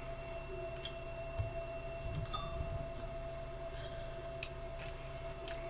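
Light clicks and taps from hands and tools working on an open radio autotuner, about five of them spread out, the sharpest about four and a half seconds in, over a steady faint background hum.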